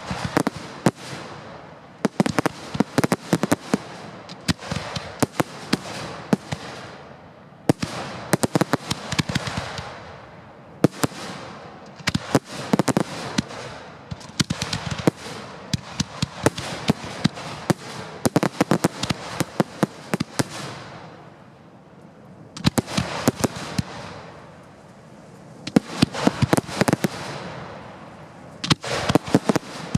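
Fireworks display heard at close range from the firing site: rapid volleys of sharp bangs and crackling, coming in dense clusters with a couple of brief lulls in the second half.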